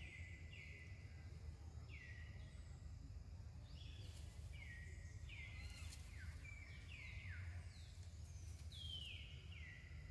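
Faint bird calls repeated over and over: short clear notes that each slide down in pitch, coming one to two a second, over a steady low rumble.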